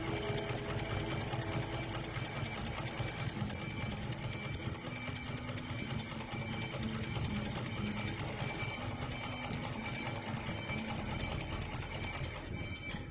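FOXSEW FX1202H extra heavy-duty programmable pattern sewing machine sewing a bartack through a thick climbing rope, its needle running in a fast, steady rhythm.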